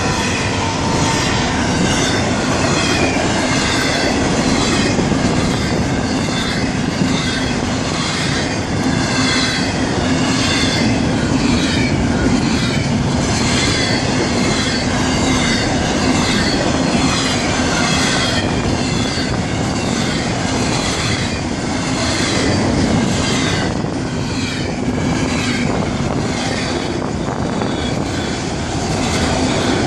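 Freight cars of a Florida East Coast Railway train rolling past, steel wheels clicking over the rail joints and squealing in a high, wavering tone.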